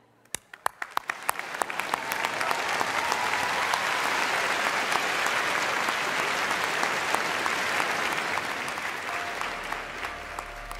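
Theatre audience applauding: a few scattered claps that swell within a couple of seconds into full, steady applause, easing off near the end as music comes in.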